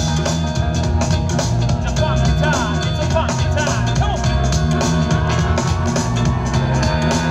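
Loud music with drums and a heavy bass line.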